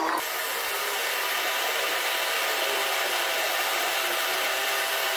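A power tool running steadily with an even hissing whir.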